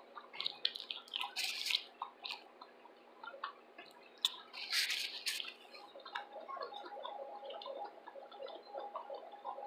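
Close-up chewing and lip-smacking while eating fried shrimp: many small irregular mouth clicks, with two louder, noisier bites about one and a half and five seconds in.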